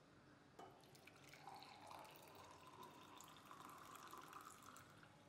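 Faint pouring and dripping of liquid, with a faint tone that rises in pitch as a vessel fills.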